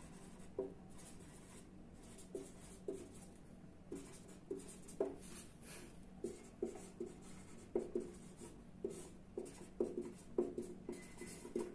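Marker pen writing in many short, irregular strokes. A steady low hum runs underneath.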